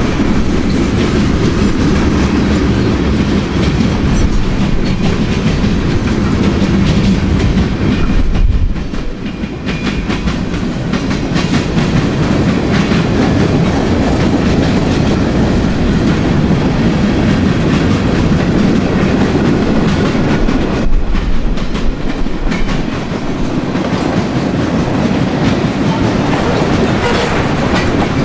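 Freight cars of a manifest train, many of them tank cars, rolling past close by: a steady rumble of steel wheels on the rails with clickety-clack over the rail joints. The sound dips briefly twice, about a third of the way in and again about three quarters of the way in.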